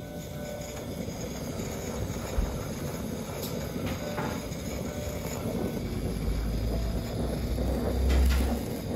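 Kitchen blowtorch flame running with a steady low rushing noise as it caramelizes the sugar on top of custards, louder in the last few seconds.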